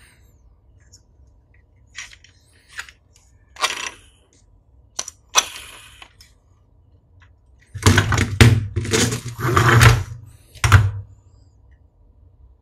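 Hard plastic toy parts clicking and knocking as a transforming robot toy is handled: a few scattered clicks, then a louder run of clattering knocks about eight seconds in.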